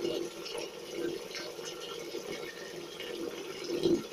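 Bathwater splashing steadily around a small wet dog as its fur is rubbed down by hand in the tub.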